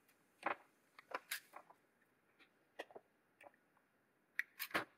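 A razor blade and small screwdriver scraping old glue off small plastic hair-dryer buttons: short, irregular scratches and clicks, with a louder cluster near the end.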